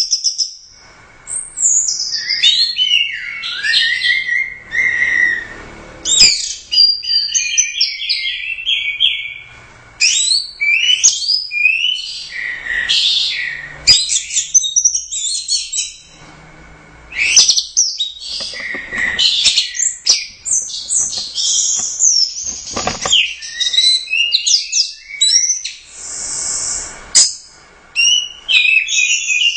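Orange-headed thrush (anis merah) singing loudly, a long, varied run of quick whistled and twittering phrases that come in bursts of several seconds with short pauses between them.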